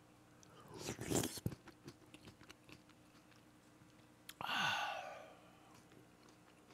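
A person chewing a mouthful of food close to the microphone, with small wet clicks of the mouth and a louder noisy mouth sound about a second in. Near the middle comes a short hum from the eater, its pitch falling.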